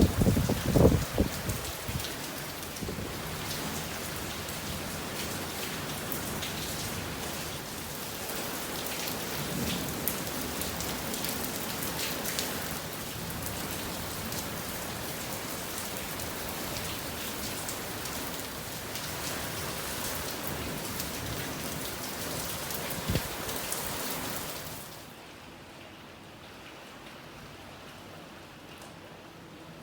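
Steady rain falling, an even hiss with scattered sharp drop ticks, opening with a loud low rumble for a second or two. About 25 seconds in it cuts abruptly to a quieter, duller hiss.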